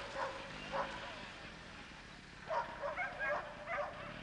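Dog yapping in short, high barks: a couple at first, then a quick run of several about two and a half seconds in.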